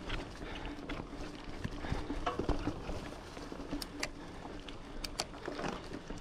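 Giant Fathom 2 hardtail mountain bike rolling down a dirt trail: tyre and trail noise with a faint steady hum, broken by irregular sharp clicks and knocks as the bike rattles over bumps.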